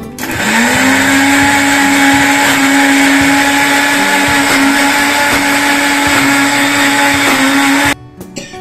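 Electric mixer grinder motor spinning up quickly, then running steadily as it grinds mint, coriander and green chillies into a paste. It cuts off abruptly near the end.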